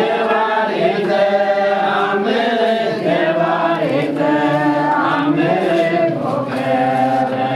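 A group of voices chanting an Orthodox liturgical hymn together, with long held notes moving from pitch to pitch.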